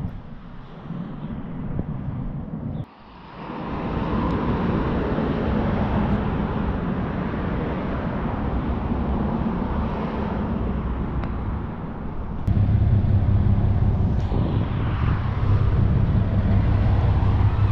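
Outdoor car-park and road noise with vehicles around. About two thirds of the way in, a steady low rumble sets in and the sound grows louder.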